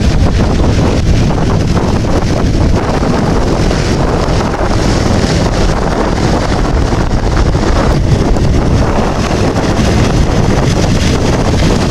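Fairey Swordfish biplane's Bristol Pegasus nine-cylinder radial engine running as it flies past, largely buried under heavy wind noise on the microphone.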